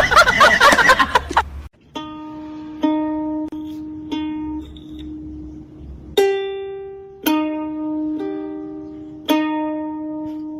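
Music: a slow melody of single plucked-string notes, each struck sharply and fading, about one a second. It follows a loud, busy burst of sound that cuts off about a second and a half in.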